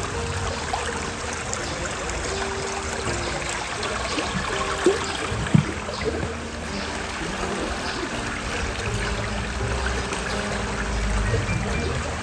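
Shallow, fast stream rushing and rippling around stone stepping slabs, a steady flow of water. Two sharp knocks come about five seconds in, half a second apart.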